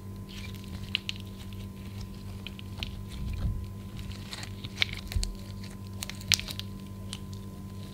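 Clear slime coloured with eyeshadow being squeezed and folded by hand: irregular sticky pops and crackles, a few sharper ones, over a steady low hum.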